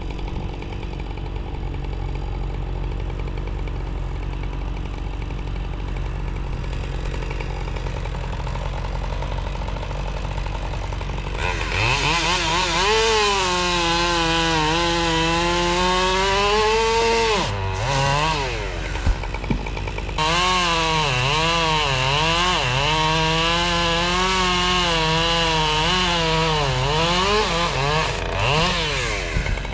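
Chainsaw running steadily for about the first ten seconds, then driven hard through wood, its pitch sagging and recovering as the chain loads up in the cut, with a brief letup partway through before it goes back into the cut.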